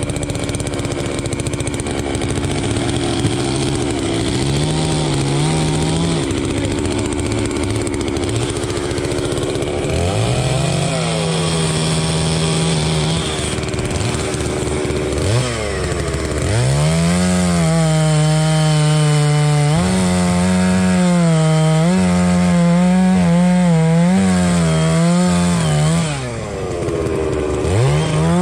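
Holzfforma two-stroke chainsaw running at high revs and cutting wood, its pitch wavering and sagging under load. Three times, about ten seconds in, around the middle and near the end, the engine drops off toward idle and is revved straight back up.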